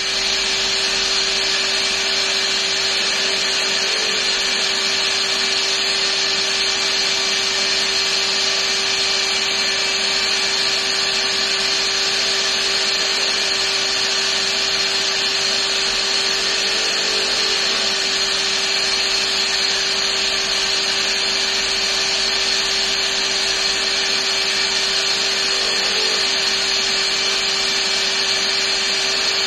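Bench polishing machine running steadily: a constant motor hum and whine as contrabassoon keys are buffed against its spinning brush loaded with polishing paste.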